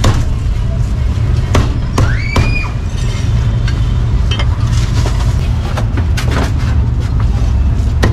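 Irregular sharp knocks of a cleaver on a chopping block, over a steady low rumble of street traffic. A brief rising tone comes about two seconds in.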